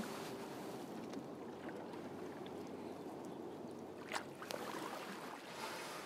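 Water lapping and gurgling around a canoe, a steady low wash with a few faint clicks and knocks, the sharpest about four seconds in.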